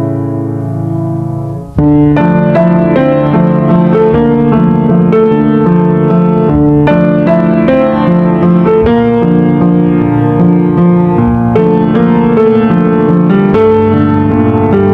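Background music. A held chord fades and cuts off about two seconds in, then a piano-led tune with regular, evenly struck notes starts.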